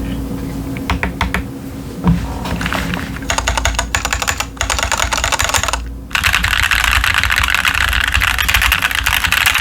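Typing on a Keychron Q10 mechanical keyboard with TTC Chaotic Panda switches and doubleshot ABS cherry-profile keycaps. At first there are a few scattered keystrokes, then a run of separate key presses, a brief pause about six seconds in, and fast continuous typing to the end.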